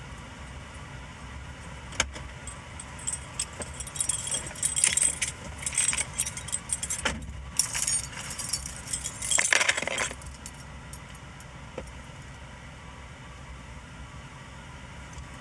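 Keys jangling and clinking as a person gets into a car's driver seat, over a low steady hum, with a single sharp click about two seconds in.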